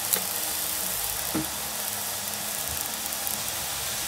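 Black nightshade leaves, garlic, onion and tomato sizzling steadily in hot oil in a pan, with two light knocks: one just after the start and one about a second and a half in.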